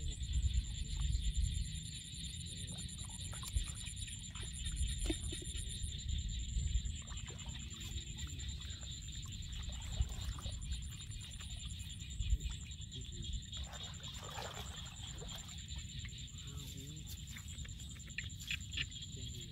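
Bare hands digging and scraping in wet mud and shallow water, with small wet squelches and splashes. Wind rumbles on the microphone, and there is a steady high-pitched buzz.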